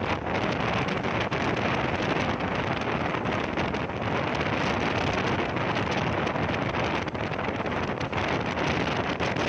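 Steady rush of wind over the microphone at the open door of a passenger train running at speed, mixed with the train's running noise.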